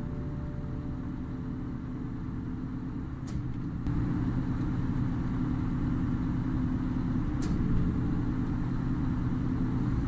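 Engine of heavy construction machinery running steadily, a little louder from about four seconds in.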